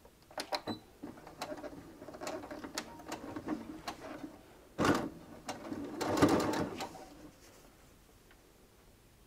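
Domestic sewing machine stitching a straight stitch in short stop-start runs, with irregular clicks between them; the longest and loudest run comes about six seconds in, and the machine is quiet near the end.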